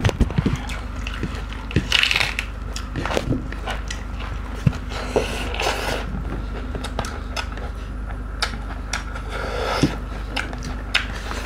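Close-miked eating sounds of people chewing rice and pork curry eaten by hand, with many short wet clicks and smacks scattered through.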